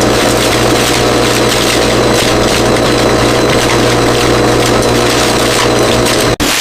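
Factory machinery running with a steady hum and several constant tones under a mechanical noise. It cuts off abruptly near the end.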